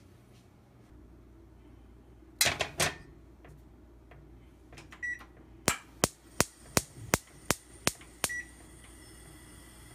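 A few sharp clanks as a small pot is set on a gas hob's burner grate, then the stove's igniter clicking about eight times, nearly three a second, until the burner lights with a faint steady hiss.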